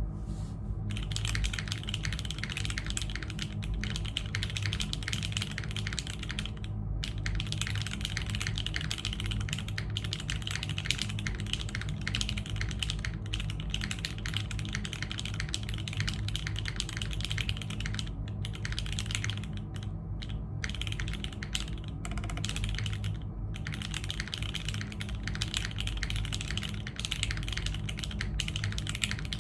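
Steady typing on a custom mechanical keyboard, a Keebscape Solaris with factory-lubed Alexotor Granite switches on an o-ring mounted polypropylene plate and GMK keycaps, giving a soft bottom-out that sounds slightly plasticky. The keystrokes run on fast and dense, with a few brief pauses.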